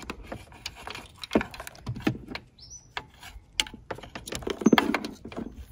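Irregular clicks, taps and rustling from a loose wiring harness with plastic connectors being handled and moved around a car's engine bay, with a louder clatter about three-quarters of the way through and one brief high chirp near the middle.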